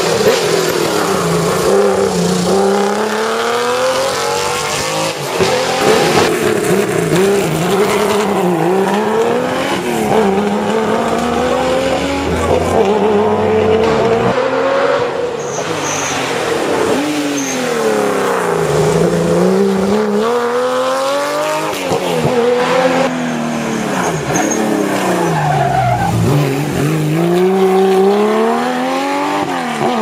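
Historic rally cars driven hard on a closed stage, one after another, engines revving up through the gears with the pitch climbing, dropping at each lift or shift, and climbing again many times over.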